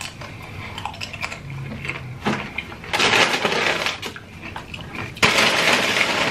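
Close-up crunching and rustling of tortilla chips, in two loud stretches about three seconds in and again near the end, after light clicks and taps of bowls and utensils.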